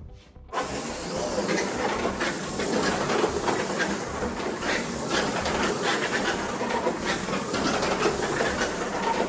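Abrasive scrubbing on a slot car's metal chassis: a steady scratchy hiss with faint repeated strokes, starting abruptly about half a second in.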